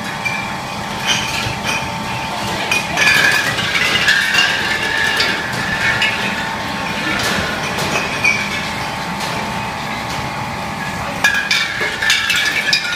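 Bottling line running: bottles clinking and knocking against each other and the steel conveyor, over a steady machine hum with a high whine that comes and goes. The clinks bunch up a few seconds in and again near the end.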